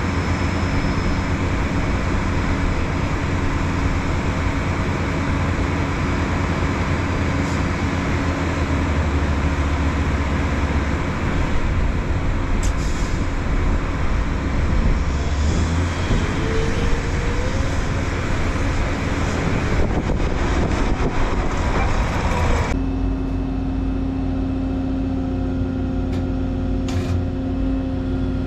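Diesel engine of a heavy construction machine running steadily under work. About 23 seconds in the sound abruptly thins to a steadier, lower hum, with a few clicks near the end.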